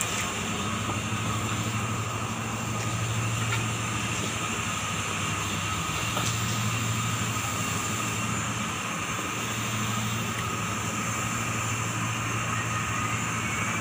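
Cable car drive machinery running: a steady low hum with a constant thin whine above it. The hum swells and eases slightly a few times.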